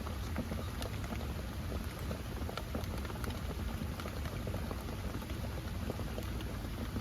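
Steady rain falling, with many separate drops striking close by as sharp, irregular taps.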